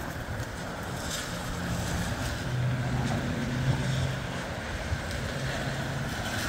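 Gusty wind blowing and rumbling on the microphone, with rain, surging briefly a few times. A low steady hum joins about two and a half seconds in.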